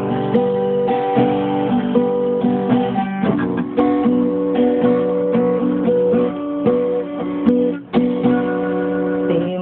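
Acoustic guitar strummed, playing a chord progression with the chords changing every second or so and a brief break about eight seconds in.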